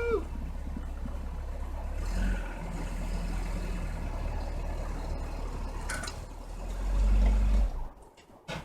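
Low, steady engine rumble that grows louder for a moment near the end, then cuts off.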